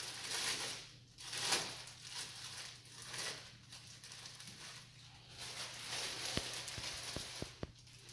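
Plastic bubble wrap rustling and crinkling in uneven bursts as it is pulled off a drum pad, with a few light knocks near the end.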